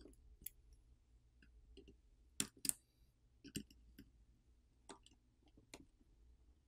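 Faint, scattered small clicks and taps of a tool on a smartphone's internals as its two thin antenna wire cables are popped off their connectors on the charger port board, over near silence.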